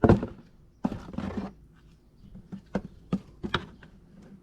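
Bumper brackets being handled: a sharp knock at the start, a short scraping rustle about a second in, then several sharp clicks and taps.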